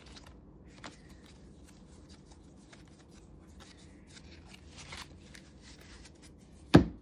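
Faint rustling and small clicks of objects and packaging being handled, then one sharp, loud knock near the end.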